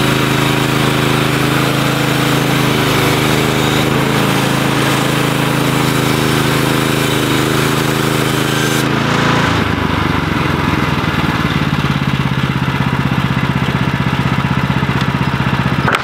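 Woodland Mills HM126 portable bandsaw mill running, its small gas engine driving the band blade through a log. About nine seconds in, the high hiss of the cut drops away and the engine settles to a lower, pulsing note.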